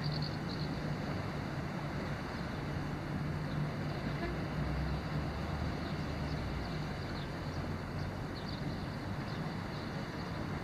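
A distant engine drones steadily under an even outdoor hiss, thickening a little around the middle. Faint high chirps come and go.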